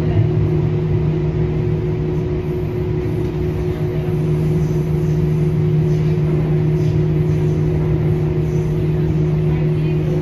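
Siemens S70 light rail car of the LYNX Blue Line running at a steady speed, heard from inside: a steady motor hum over the rumble of wheels on rail.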